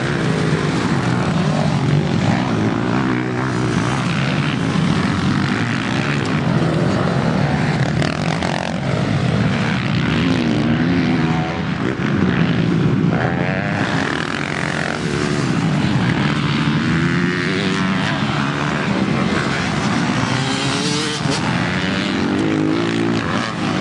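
Off-road engines on a motocross track revving continuously, their pitch rising and falling over and over as the throttle is opened and backed off.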